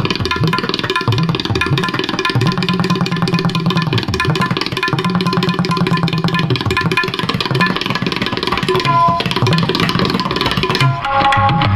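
Tabla music played back through a rebuilt vintage Pioneer speaker system: quick tabla strokes over deep, held bass-drum notes. Near the end, steady melodic notes from another instrument join in.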